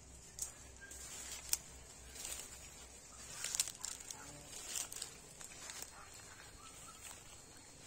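Rustling and crunching in grass, with a few sharp clicks, loudest about one and a half and three and a half seconds in, over a steady high hiss, with a few faint bird chirps.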